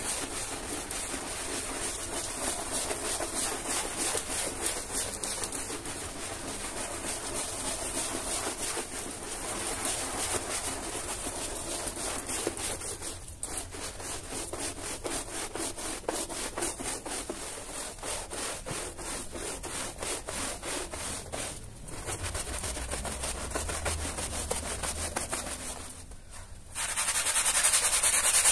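Stiff brush bristles scrubbing a wet, foam-soaked carpet in quick repeated strokes, the foam squelching. About 27 s in it changes to a handheld scrub brush worked close up, louder.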